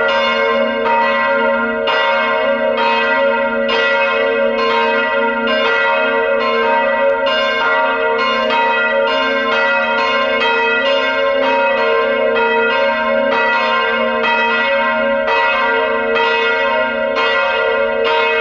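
Church bells of a parish church ringing a full peal, calling to the evening mass: a strike about once a second over a continuous, overlapping hum of several bell tones.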